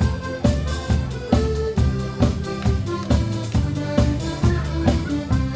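Instrumental break of an upbeat band song: steady drum-kit beat with bass, guitar and fiddle, no singing.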